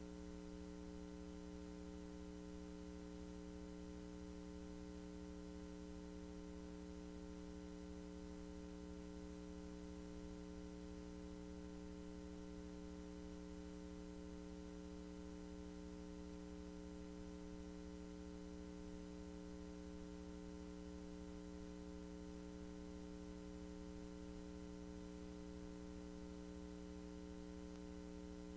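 Faint steady electrical hum: a low buzz made of several even tones over light hiss, with no change.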